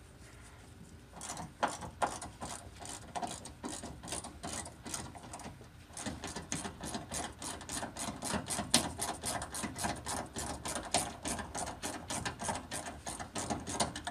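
Hand ratchet clicking as a long radiator mounting screw is backed out. A few scattered clicks at first, then a fast, even run of clicks, several a second, from about six seconds in.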